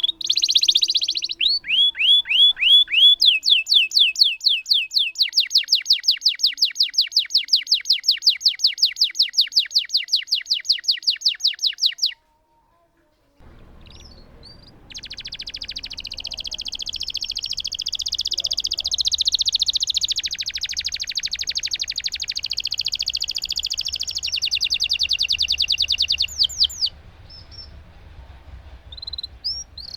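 Domestic canary singing long rolling phrases. Repeated sweeping notes quicken into a fast trill of about eight notes a second, break off just after the 12-second mark, then come back as a dense, unbroken roll that lasts about eleven seconds.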